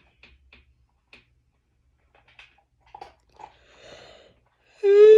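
A pet eating from its bowl: faint, scattered crunching clicks. Near the end a loud, high, drawn-out call begins, rising slightly and then falling in pitch.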